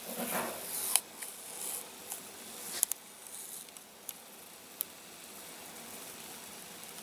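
Faint handling noises of a small die-cast metal toy being worked on by hand: light rustling with a few sharp clicks, the clearest about one second and three seconds in.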